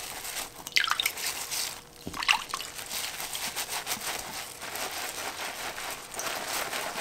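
A wet mesh bath pouf squeezed and kneaded by hand in a bowl of soapy water: sloshing and dripping, with splashes about one and two seconds in, then continuous wet squishing as the shower gel lathers up.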